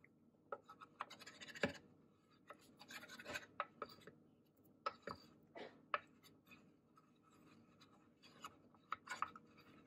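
Wooden spoon scraping and knocking against a small stainless steel bowl, stirring a thick cornstarch-and-water slurry in short, intermittent strokes with pauses between.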